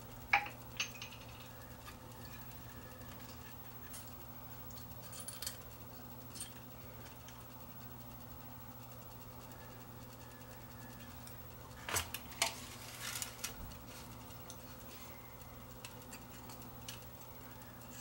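Sparse small metallic clicks and clinks of tools and parts being handled while soldering new capacitors onto a circuit board, with a cluster of sharper clicks about twelve seconds in, over a steady low hum.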